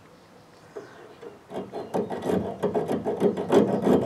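Hacksaw cutting through a rusty metal fuel line in short, rough back-and-forth strokes. It starts about a second and a half in and gets louder.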